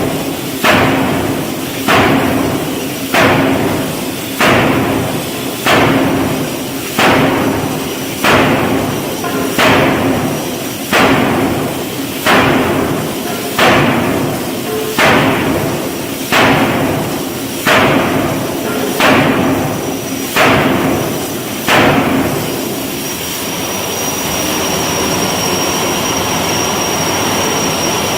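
Steam forging hammer striking hot steel in a steady rhythm, one heavy blow about every second and a half, each ringing briefly. The blows stop about 22 seconds in, giving way to a steady hiss with a thin high whine.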